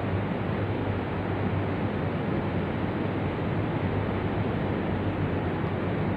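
Steady road and engine noise of a moving car: an even hiss with a low hum beneath it, unchanging throughout.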